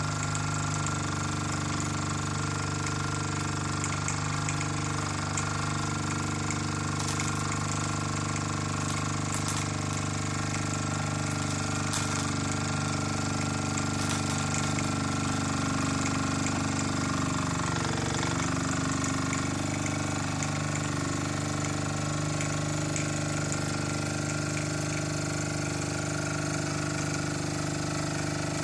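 Mersey 52 toy steam engine running fast and steady, a constant mechanical buzz with a hiss over it; its pitch dips briefly about eighteen seconds in. It is running well with its leaks soldered up.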